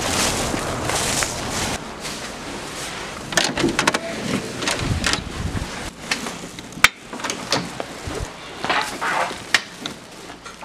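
Footsteps and rustling outdoors over leaves and grass, then a door's lever handle and latch clicking sharply about seven seconds in as the door opens, followed by more footsteps and handling noise.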